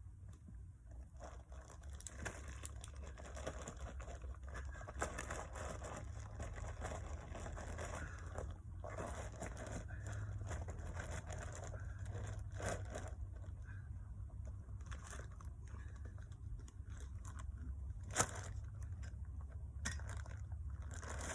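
QPR cold-patch asphalt, a gravelly mix, being worked into a pothole by hand: continuous crunching, scraping and crackling with many small clicks, one sharper click about 18 seconds in, and a low steady rumble underneath.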